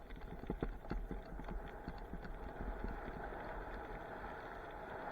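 A rapid, uneven series of knocks and clatters that thins out after about two and a half seconds, giving way to a steady rushing noise.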